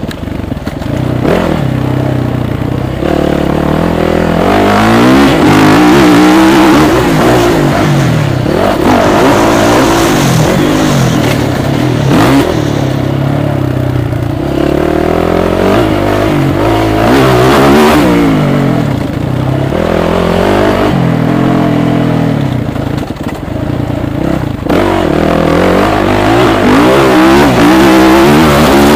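Motocross bike engine heard close up from the rider's onboard camera, loud throughout, its pitch repeatedly climbing as it accelerates through the gears and dropping as the throttle is shut off for the turns.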